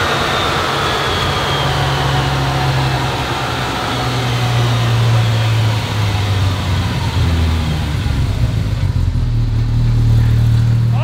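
Polaris Pro R's four-cylinder engine running with its tyres spinning on the rollers of a load dyno, as the run winds down. A high whine falls in pitch over the first couple of seconds under a steady low engine note.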